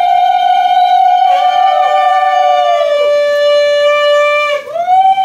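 Conch shell (shankha) blown in a long, loud, steady note that settles a little lower in pitch partway through, with a brief break for breath about four and a half seconds in before it sounds again.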